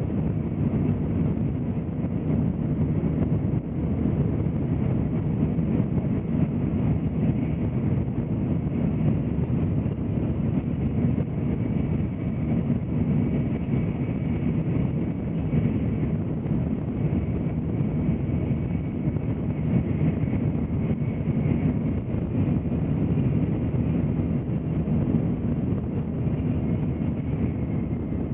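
Tokaido Shinkansen bullet train running, heard inside the passenger car: a steady low rumble.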